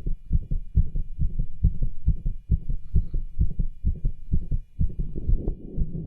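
Heartbeat heard through a cardiology stethoscope, beating fast in quick paired thumps, with murmurs and rubs audible around the beats. Near the end the sound turns rougher and noisier.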